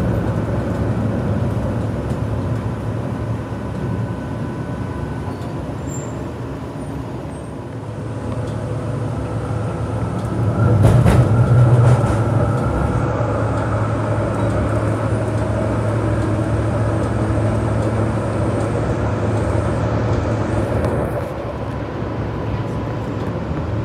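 Tram running, heard from inside the car: a steady low hum and rumble of the tram in motion. About eleven seconds in it grows louder for a second or two, with a sharp knock.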